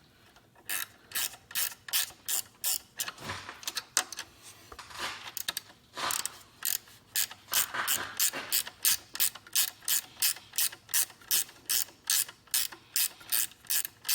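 Hand socket ratchet clicking in quick strokes, about three clicks a second, as a bolt on the alternator is turned down.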